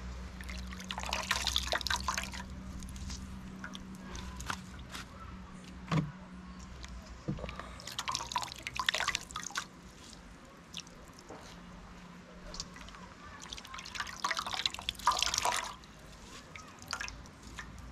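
Coconut milk being squeezed out of grated coconut soaked in water, the liquid trickling and dripping in three bouts a few seconds apart, with small wet clicks between them.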